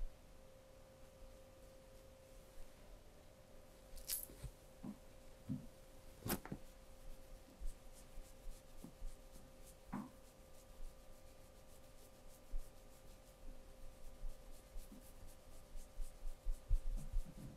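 Hands scratching and rubbing skin and hair in an ASMR massage: sparse soft scrapes and a few sharp clicks, with a quick run of small clicks near the end, over a steady low hum.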